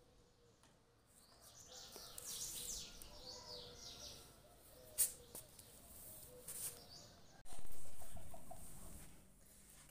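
Small birds chirping in quick, high, falling notes for a few seconds, then a sharp click. About three-quarters of the way in, a sudden rush of noise starts and fades away over a couple of seconds.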